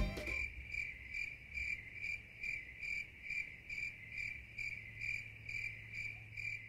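A cricket chirping steadily at an even pitch, a little over two chirps a second.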